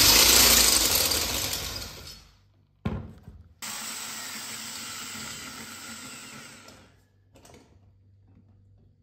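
Electric hand drill running, then spinning down about two seconds in, followed by a sharp click. After a break, a quieter steady mechanical noise runs for about three seconds and fades.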